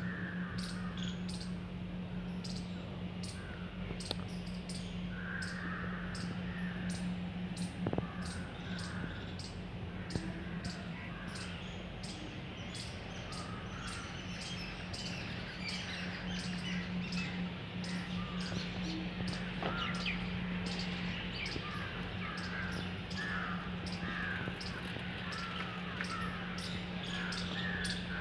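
Birds chirping and calling on and off over a steady low hum, with a faint regular high ticking.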